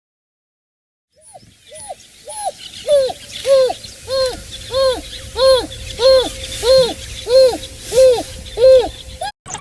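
An animal's hooting call: a run of about fourteen rising-and-falling hoots, a little under two a second, starting about a second in and growing louder as it goes.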